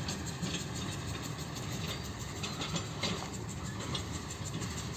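Small narrow-gauge diesel locomotive of a sugar-mill cane railway running as it moves off along the track, a steady low engine rumble with a few faint clicks.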